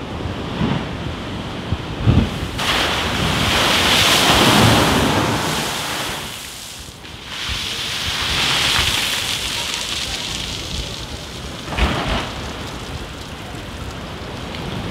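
Storm waves crashing against a railway sea wall, with spray falling on the platform like heavy rain. Two long swells of rushing water, one about two and a half seconds in and one about eight seconds in, and dull thuds of waves striking the wall about two seconds in and again near twelve seconds. Wind buffets the microphone.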